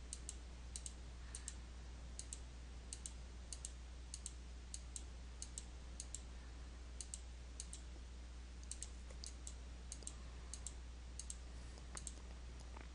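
Computer mouse clicking repeatedly: small sharp clicks about every half second, some in quick pairs, over a faint steady low hum.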